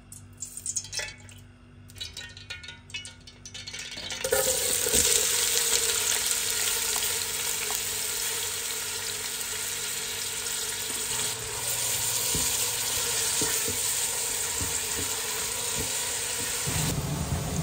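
Sliced onions in hot oil in a steel pot: after a few light taps, a loud steady sizzle starts suddenly about four seconds in as they fry. A silicone spatula stirring them adds occasional ticks and scrapes.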